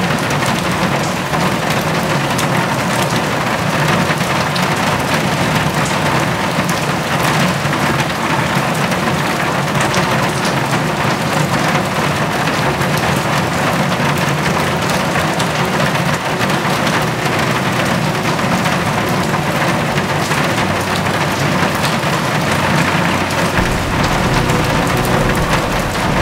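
Steady rain falling on a hard surface: an even, dense hiss scattered with many fine drop ticks.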